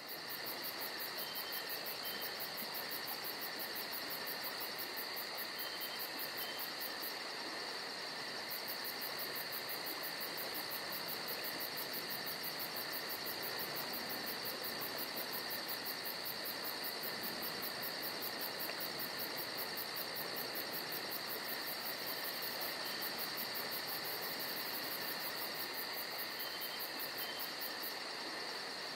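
A steady, unbroken insect chorus of dense even trilling, with a few faint short chirps now and then.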